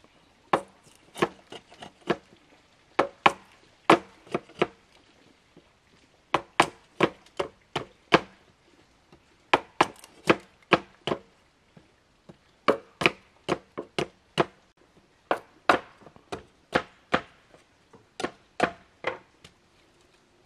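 A knife chopping on a wooden board: sharp knocks in short runs, about two to three a second, with brief pauses between the runs.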